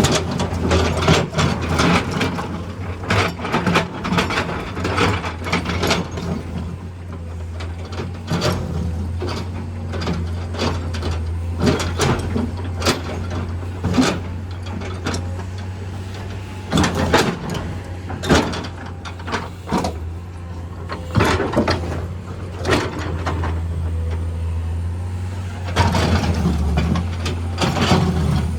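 Heavy machinery at work: an excavator's diesel engine running steadily, with repeated bursts of sharp metallic clanking and rattling.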